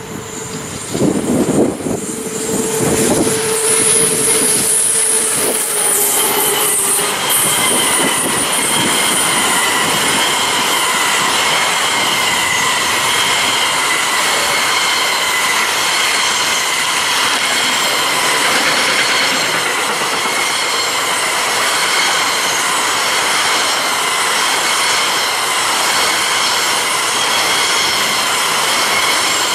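A freight train passing close by: the locomotive goes by in the first several seconds with a low hum and a high whine, then a long string of wagons rolls past steadily, the wheels ringing and squealing over the rails with a clatter.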